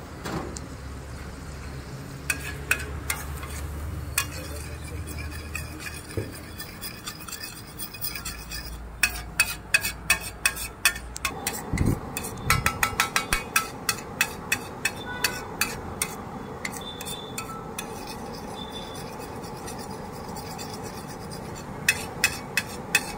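A flat metal spatula taps and scrapes against a large steel pan as an egg-and-cheese mixture is chopped and stirred. The sound comes as quick runs of sharp clicks, busiest around the middle and again near the end.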